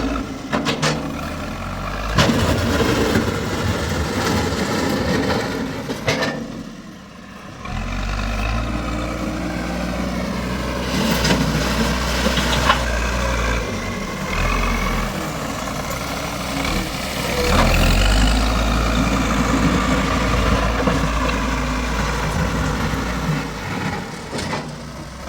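JCB backhoe loader's diesel engine running under load, rising and falling in level, with a brief dip about seven seconds in and a few sharp knocks over the engine noise.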